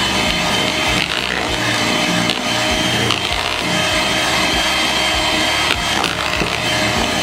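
Electric hand mixer running at a steady speed, its beaters whirring through thick cake batter in the bowl, with a few knocks along the way.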